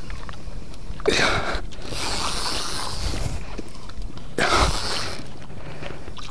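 Two short, hard breathy exhalations about three seconds apart over a steady hiss, from a person straining while reeling in a fish.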